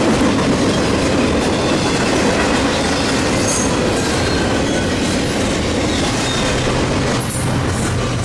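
Double-stack intermodal freight train passing close by: a steady loud rumble and clatter of wheels on rail, with brief high squeals about three and a half and seven seconds in. A low steady drone comes in near the end.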